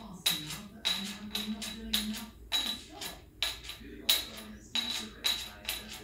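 Metal bottle caps clicking against a wooden tabletop as an African grey parrot plays with them: about two sharp clicks a second, each with a bright metallic ring.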